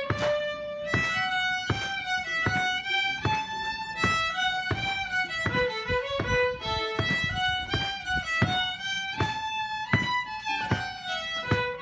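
Two fiddles playing a tune together, a melody of distinct bowed notes.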